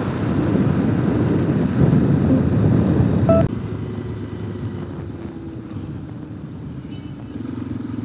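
Motorcycle riding in traffic, heard from a helmet camera: engine rumble mixed with wind noise, loud at first, then dropping suddenly about three and a half seconds in to a quieter steady engine hum whose tone sinks slowly.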